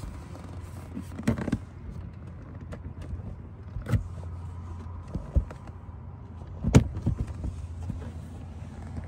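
Plastic trim clips of a truck's in-cab fuse box cover clicking and knocking as the cover is prised off by hand, a handful of separate sharp clicks with the loudest about two-thirds of the way through, over a steady low rumble.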